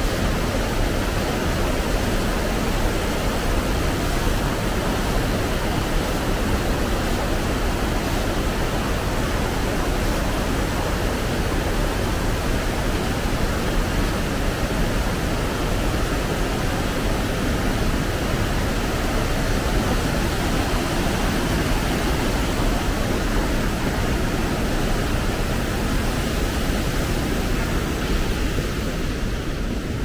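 Steady rush of falling water from Ryuzu Waterfall, a cascade on the Yukawa River.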